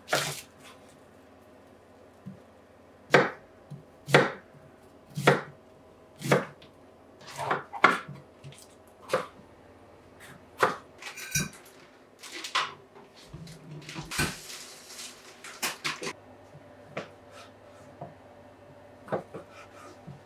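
Kitchen knife chopping onion, green pepper and sausages on a wooden cutting board: separate sharp knocks of the blade on the board, roughly one a second, over a faint steady low hum that stops about halfway through.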